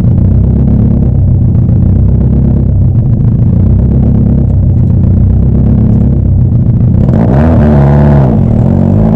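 Exhaust of a 1996 Subaru Impreza WRX STI (GC8), its turbocharged flat-four idling steadily. About seven seconds in it is revved once, the pitch rising and falling back to idle.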